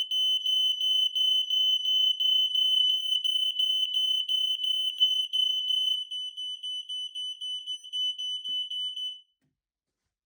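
Smoke alarm sounding its test alarm: a high-pitched, rapidly pulsing tone. It gets quieter about six seconds in and cuts off shortly after nine seconds.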